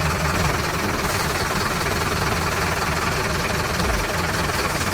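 Engine running steadily, a cartoon truck engine sound effect.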